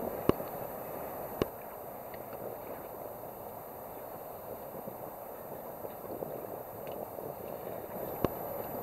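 Water lapping and gurgling around a boat, a steady wash of sound. Two sharp knocks in the first second and a half and another near the end.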